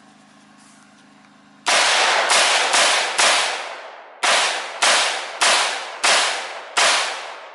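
AR-15 rifle fired in rapid semi-automatic shots: nine sharp, echoing cracks, four about half a second apart, then after a short pause five more at the same pace.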